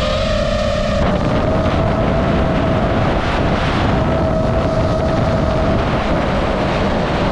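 DJI FPV drone's motors and propellers holding a steady high whine, with wind rushing over the microphone in forward flight.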